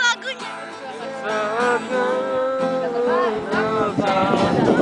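A group of friends singing together to an acoustic guitar.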